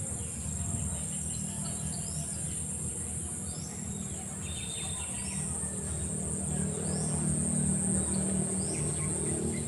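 Steady high-pitched insect chorus, with short rising bird chirps every second or two and a low rumble beneath.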